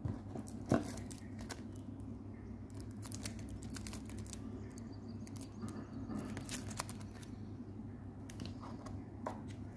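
Clear plastic sleeve crinkling and rustling as a guarantee card is handled and pulled from it, with light clicks from the cardboard watch box and one sharper knock about a second in. A steady low hum runs underneath.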